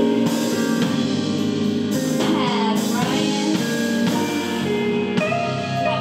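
Live R&B band playing: electric guitar, bass guitar, drums and keyboard, with some gliding, bent notes in the upper line.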